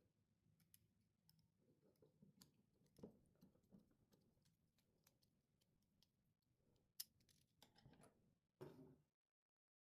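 Near silence with faint, scattered clicks and ticks, one sharper click about seven seconds in; the sound cuts to dead silence about nine seconds in.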